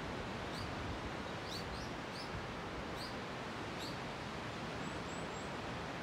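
Steady wash of sea surf, with a small bird giving short, high chirps about six times over the first four seconds and a few fainter, higher chirps near the end.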